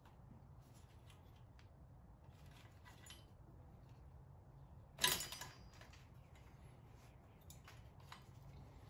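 Small metal clicks and clinks of hand tools and engine parts being handled, with one louder clink about five seconds in, over a low steady hum.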